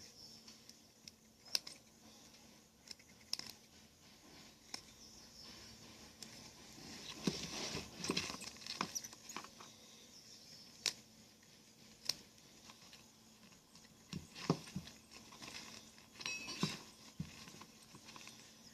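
Stitching being picked out of a surf leash's velcro strap by hand: faint, scattered clicks and short scratchy rasps of thread being pulled and cut from the nylon strap, busiest about halfway in and again near the end.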